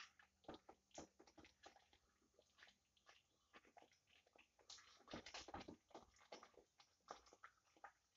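Spatula stirring thick rice-flour dough in a steel pot: faint, irregular squelching and scraping strokes, a few a second, busier about five seconds in.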